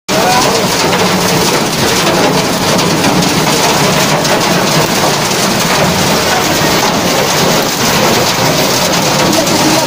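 Hailstorm: hailstones and rain pelting down steadily, a dense clatter of countless small impacts.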